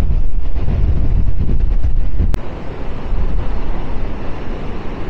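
Strong wind buffeting the microphone, a heavy low rumble. About two and a half seconds in it breaks off with a sharp click and gives way to a quieter, steadier rush of wind.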